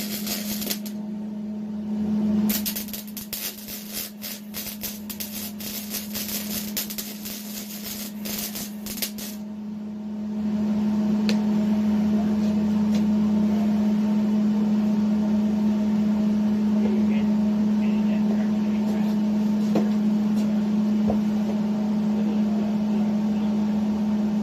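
MIG welding arc crackling in two runs: a short burst at the start and a longer one of about seven seconds. A steady hum runs underneath and carries on alone, louder, for the rest of the time after the welding stops.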